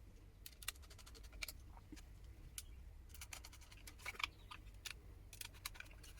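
Small screws being driven into the side mounts of a 2.5-inch SSD: faint, irregular metallic clicks and ticks from the screwdriver and screws, the sharpest a little past the middle.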